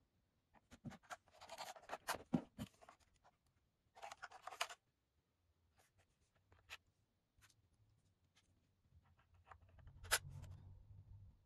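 Quiet handling of a plastic mechanical keyboard: rubbing and scattered light clicks and taps as it is turned over against its cardboard box, with a sharper click near the end as a slide switch on its back edge is moved.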